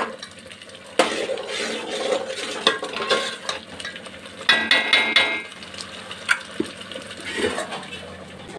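A steel ladle stirs and scrapes thick tomato puree frying in a steel pot, with knocks against the pot; the puree is being roasted until the oil separates. A little past halfway the metal gives a ringing clang.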